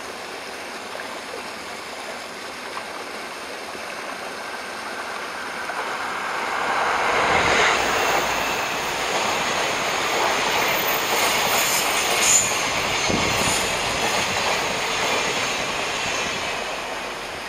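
Trains passing each other close by, the Twilight Express sleeping cars among them: wheels rolling and clacking over the rail joints. The sound builds over several seconds and stays loud through the middle, with a high wheel squeal and one sharp peak, then fades.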